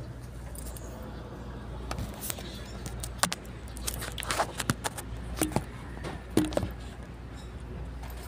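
Scattered short clicks and light knocks, most of them in the middle few seconds, over a steady low hum.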